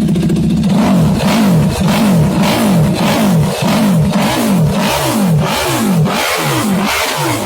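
KTM 1190 RC8's V-twin engine and exhaust, idling steadily and then, about a second in, revved over and over: quick throttle blips, each rising in pitch and falling back, a little under two a second.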